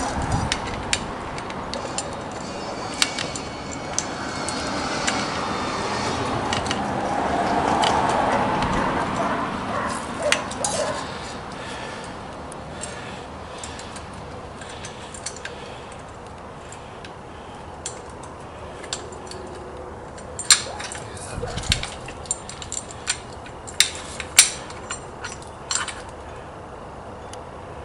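Small metal parts and hand tools clicking and clinking as a bracket is fitted to a lathe carriage, with scattered sharp ticks in a cluster past the middle. Earlier, a rush of noise rises and falls, loudest about eight seconds in.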